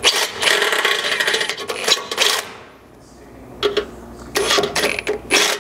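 Handheld drill with a 7/16-inch twist bit boring through the steel frame rail of a 2022 Nissan Frontier, finishing a hole through two welded-together layers that a step bit could not reach. The bit cuts in two spells, easing off for about a second midway.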